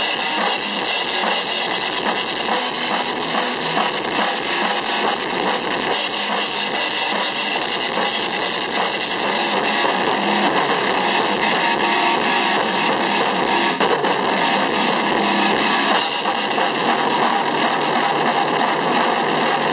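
Electric guitar and a drum kit playing rock together: distorted guitar chords over a steady drum beat with cymbals, loud and continuous. The cymbal wash thins for several seconds past the middle.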